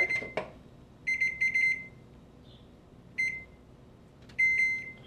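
Electronic beeper sounding short beeps at one steady high pitch: a quick run of beeps about a second in, then single beeps about three seconds and four and a half seconds in. A brief clink comes at the very start.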